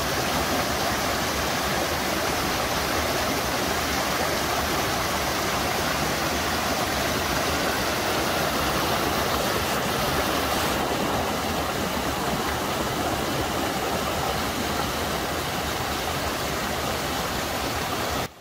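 Steady rushing noise with no tone or rhythm in it, cutting off suddenly near the end.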